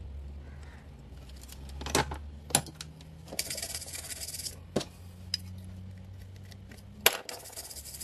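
A printed circuit board and tools handled on a workbench: several sharp clicks and taps, and twice a stretch of scratchy rubbing over the board's solder side, just after a new PC817 optocoupler has been soldered in. A low steady hum runs underneath.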